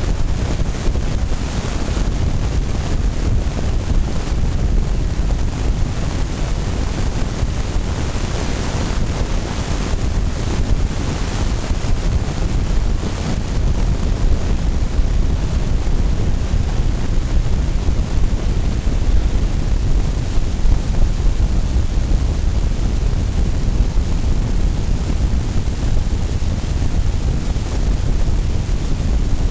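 Steady road and wind noise of a car driving along a highway, a constant rumble that is heaviest in the low end.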